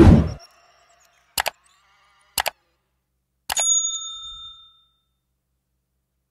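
Subscribe-button animation sound effects: a whoosh, then two mouse clicks about a second apart, then a click and a bell ding that rings out for about a second.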